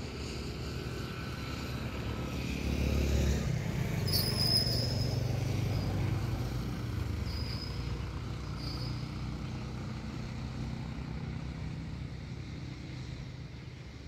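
A motor vehicle's engine on the road, a low rumble that grows louder about three seconds in and then fades slowly as it passes. A few brief high-pitched sounds come partway through.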